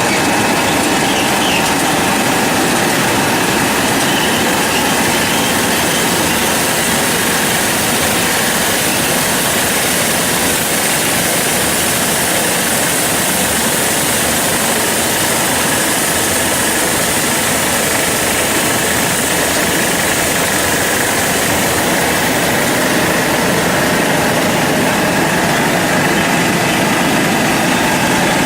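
Industrial air-bubble vegetable washing machine running: a steady, loud mechanical noise with faint steady whines, unchanging throughout.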